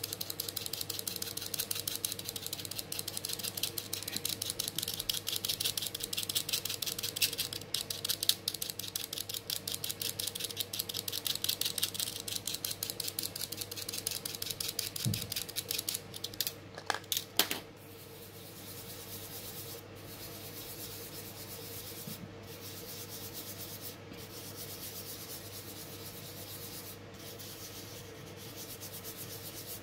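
A light-blue soft pastel stick scraped with a craft knife blade in rapid, even strokes, shaving pastel powder onto paper. About two-thirds of the way through, a few sharp clicks come. After that a quieter, steady rubbing follows as fingers spread the powder over the paper.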